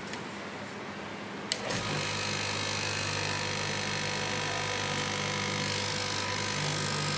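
Straight-knife cloth cutting machine: a sharp click about one and a half seconds in, then its electric motor starts and runs steadily as the blade cuts through a stack of layered cloth.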